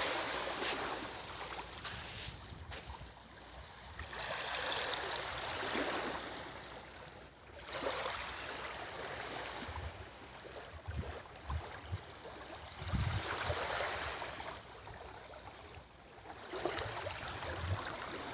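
Small waves of a calm sea washing onto the shore, the hiss of surf swelling and fading every few seconds.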